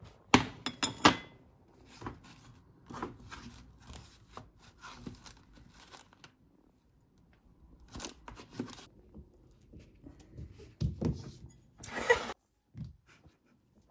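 Irregular clicks, knocks and rustling of things being handled, loudest in a quick cluster at the start and again about twelve seconds in.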